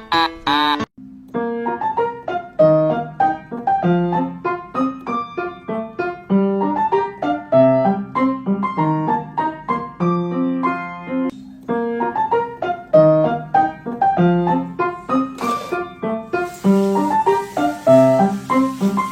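Background piano music, a steady flow of single notes and chords. A different sound cuts off abruptly about a second in before the piano begins, and a steady hiss joins under the music near the end.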